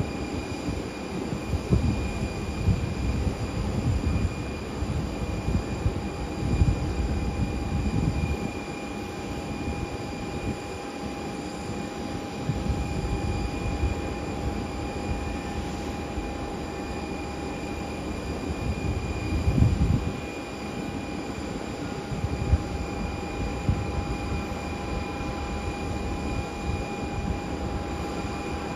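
Jet airliner's engines heard from a distance, a steady whine at low power as the aircraft rolls slowly along the runway after landing. Under it an uneven low rumble swells and fades, loudest around 7 and 20 seconds in.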